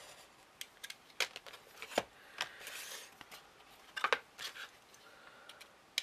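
A craft knife, metal ruler and pencil being handled on a sheet of thick grey card: scattered light clicks and taps, with a few brief scratching strokes.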